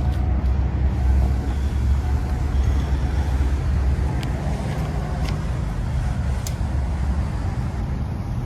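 A car engine running steadily at low revs with a deep rumble. No revving is heard, only a few faint clicks.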